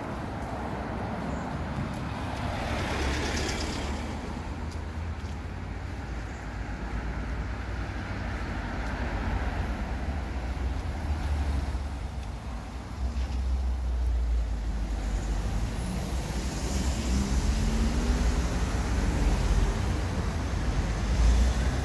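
Road traffic on a village street over a steady low rumble: a vehicle goes by about three seconds in, and another engine is heard from about two-thirds of the way through to the end.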